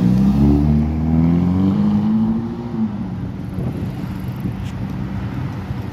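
Ferrari Roma's twin-turbo V8 accelerating past, its pitch climbing for about three seconds before it fades into steady street traffic noise.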